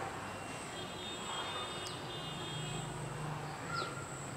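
Outdoor garden ambience: a steady thin high-pitched whine, a couple of short falling bird chirps, and a low engine hum from a distant vehicle swelling in the middle.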